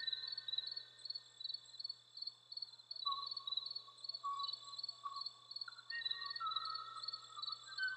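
Cricket-like insect chirping in a rapid, even pulse, over slow, held high tones that change pitch every second or two like a soft melody.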